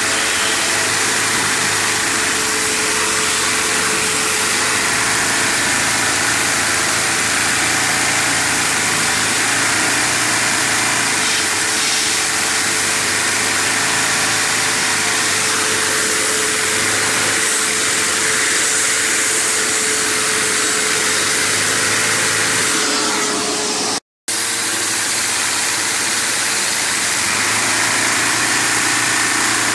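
LEGO inline-six vacuum engine running flat out on suction fed straight to its intake with no throttle: a steady rush of air and a constant whine from the vacuum, with the mechanical running of the plastic pistons and valves mixed in. The sound cuts out for a moment about four-fifths of the way through.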